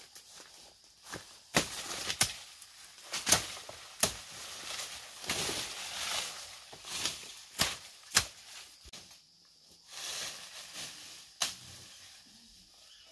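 Machete chopping through weeds and leafy undergrowth: about seven sharp, irregular chops, with rustling and swishing of leaves between them.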